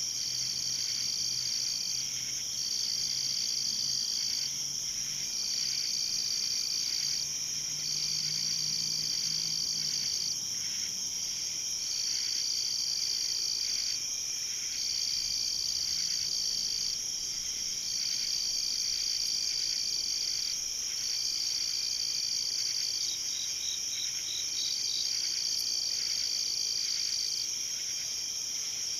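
Night insect chorus of crickets: a steady high trill throughout, with another trilling in long runs of about two seconds broken by short pauses. A short run of separate chirps comes near the end.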